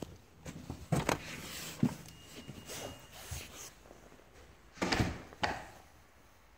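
A wooden front door being handled and shut, with sharp clunks of the latch and door against the frame about a second in, then another louder clatter of knocks about five seconds in.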